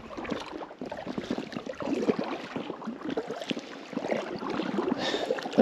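Kayak paddle strokes: the blades dip and pull through the water with irregular splashing, and drips run off the paddle onto the inflatable hull.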